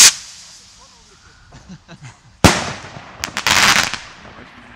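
Firework rocket: its launch whoosh cuts off at the start. About two and a half seconds in the shell bursts with a sharp bang. About a second later comes a half-second spray of crackling as the effect spreads.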